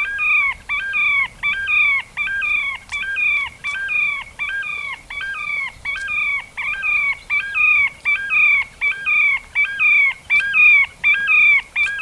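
Terek sandpiper calling: an even series of short whistled notes, about two a second, each sliding down in pitch at its end.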